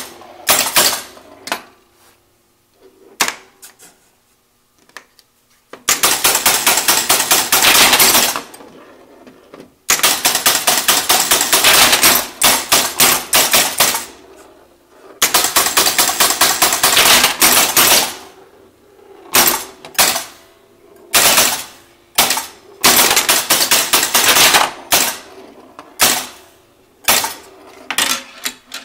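Electromechanical horse-race pinball machine's relays and stepper units clattering: a few single clicks at first, then runs of rapid clicking a few seconds long with short pauses between, turning shorter and choppier in the second half.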